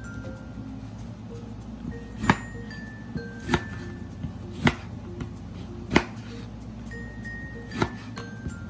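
A kitchen knife chopping an orange on a cutting board: about five sharp chops at uneven intervals of a second or so. Light background music with a glockenspiel-like mallet melody plays throughout.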